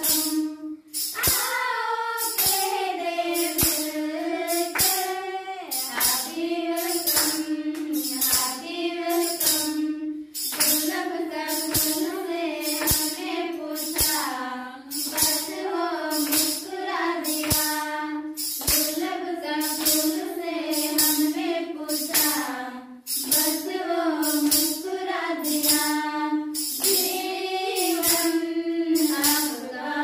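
Group of women singing a song together, with a steady beat of sharp strokes, about two a second, keeping time.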